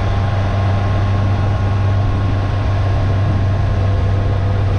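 Motorcycle engine running at a steady cruise, a constant low drone with a few steady higher tones over a rushing wind and road noise.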